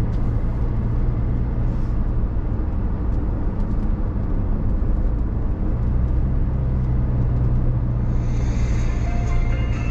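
Car driving on a road: steady low engine and tyre rumble. A higher-pitched whine joins about eight seconds in.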